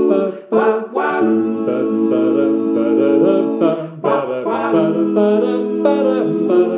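Male barbershop quartet singing a cappella in close harmony: held chords under a moving upper line, with brief breaths about half a second in and again near four seconds.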